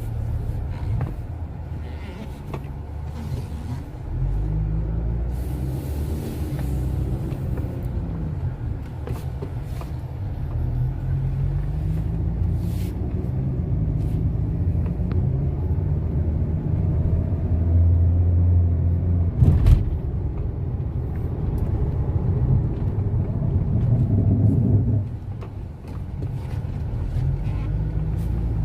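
Car engine pulling away and accelerating, its note rising and falling several times as it goes through the gears, with a sharp knock about two-thirds of the way through. The engine runs on new ignition coils and spark plugs, fitted to cure a misfire.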